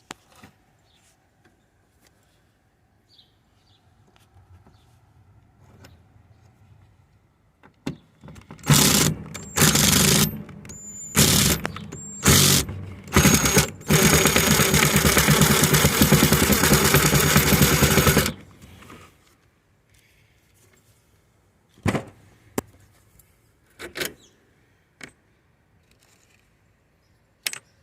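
Cordless power drill-driver run in five short trigger bursts, then held for about four seconds, backing out fasteners that hold an RV refrigerator in place; a few sharp knocks follow.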